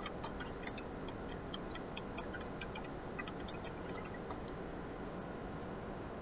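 Light, irregular clicks and taps over a steady hiss, coming several times a second and thinning out after about four seconds.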